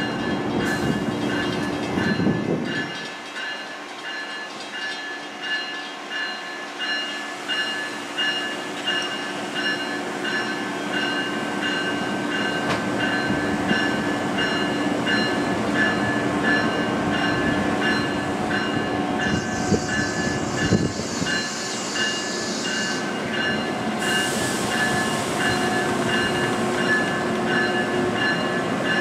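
Amtrak Amfleet passenger coaches rolling slowly past, wheels knocking rhythmically over rail joints, with a steady high whine throughout.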